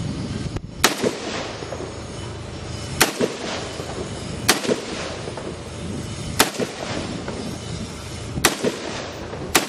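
Six single aimed shots from a 5.56 mm Colt M4 carbine with a 10.5-inch barrel and a Troy Claymore muzzle brake, spaced one to two seconds apart, each sharp crack trailing off in a short echo.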